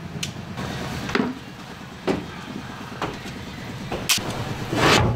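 Knocks and footsteps on the metal body and ribbed floor of an aluminium-panelled vehicle build, coming about a second apart. The sharpest knock is about four seconds in and a longer clatter comes near the end, over a steady low rumble.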